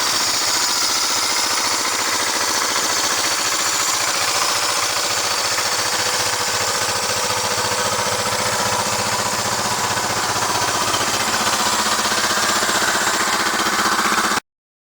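Freshly restored 1971 Honda CL350 K3's parallel-twin four-stroke engine idling steadily. The sound cuts off abruptly near the end.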